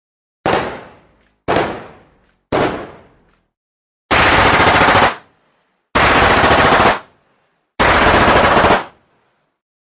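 Gunfire sound effects: three single gunshots about a second apart, each ringing out, then three bursts of rapid automatic fire, each lasting about a second.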